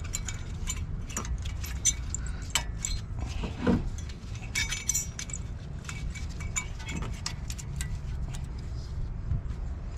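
Small metal brake hardware clinking and clicking, scattered light metallic ticks as the new anti-rattle clips are handled and fitted on the front brake caliper bracket, over a steady low hum.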